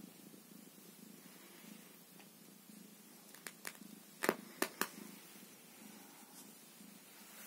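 Domestic tabby cat purring steadily while being stroked. A handful of sharp clicks break in about three and a half to five seconds in.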